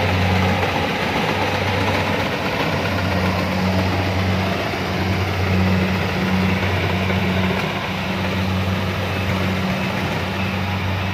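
Kubota DC-70 rice combine harvester's diesel engine running steadily: a loud, deep, even hum over a broad mechanical rush.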